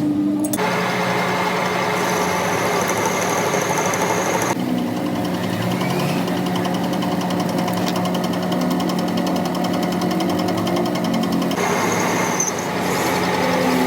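Metalworking machinery running steadily with a constant low hum, its sound changing about half a second in, again around four and a half seconds, and again near eleven and a half seconds.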